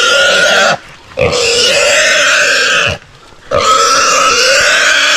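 Wild hog squealing loudly in long, strained screams, broken twice by short pauses for breath. It is the distress squeal of a hog pinned by catch dogs and hunters.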